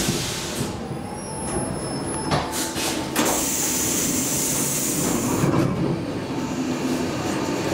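Stockholm metro C14 train car coming to rest at a station, with a faint high squeal from the wheels and brakes. About three seconds in, the doors slide open with a hiss of air.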